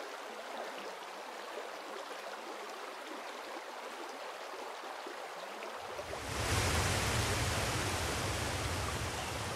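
Steady rushing water, fairly soft at first. About six seconds in it switches to the louder, fuller rush of a large waterfall cascading down rock, with a low rumble underneath.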